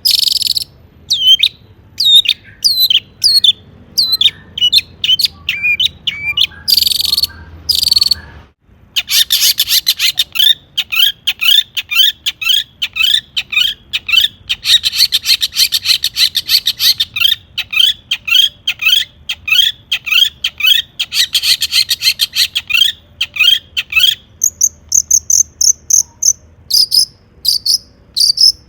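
Long-tailed shrike (cendet) singing hard: a fast, dense string of sharp repeated chirps, broken by a short gap about a third of the way in, with higher whistled notes near the end.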